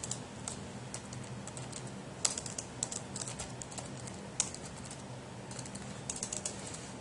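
Typing on a computer keyboard: short runs of key clicks with brief pauses between them.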